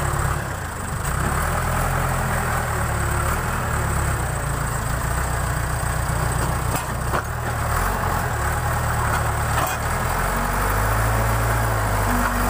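Backhoe loader's diesel engine running steadily, its note shifting about ten seconds in.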